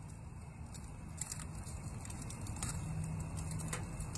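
Steaks searing under a propane infrared grill burner on high: a steady sizzle with a few sharp crackles of spitting fat, over a low steady rumble.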